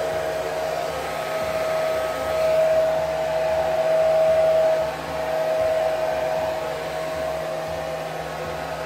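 Handheld hair dryer running steadily: a rush of air with a constant motor whine, getting louder for a couple of seconds around the middle.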